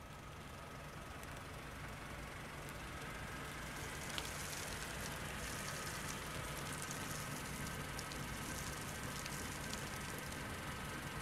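Car engine running low and steady as the car rolls slowly up, growing louder over the first few seconds, with a single sharp click about four seconds in.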